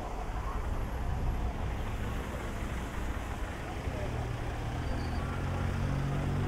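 A large diesel engine running close by, its low rumble getting louder, with a steady engine note coming in about two-thirds of the way through.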